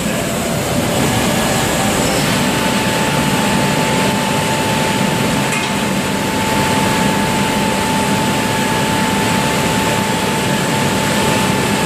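Steady, loud machinery noise from an aluminium vortex melting furnace as briquetted chips melt in its swirling well. A steady whine joins in about two seconds in and holds.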